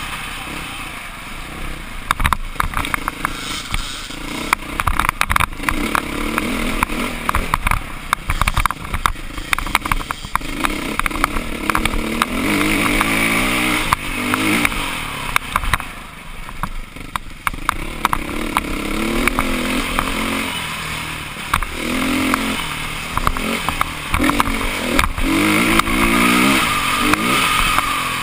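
Dirt bike engine running under way, its pitch rising and falling again and again as the throttle opens and closes, easing off briefly just past halfway. Many short knocks and rattles from the bike jolting over a rough gravel road.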